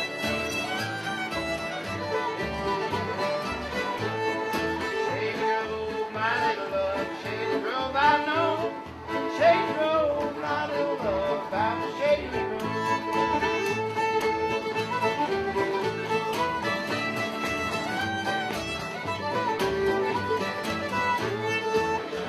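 Live acoustic bluegrass jam, with several fiddles playing the tune over strummed acoustic guitars. A steady low beat pulses under them.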